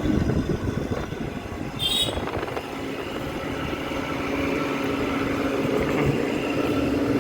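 Window air conditioner running with a rough, uneven mechanical noise from its fan motor, a steady hum coming up under it after a few seconds. It is the sound of worn motor bearings, almost certainly the bearings by the technician's own account.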